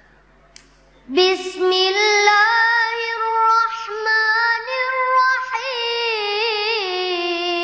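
A child's voice reciting the Quran in melodic tilawah style. After about a second of quiet it starts one long drawn-out phrase that climbs, holds and winds through quick ornamented turns near the end.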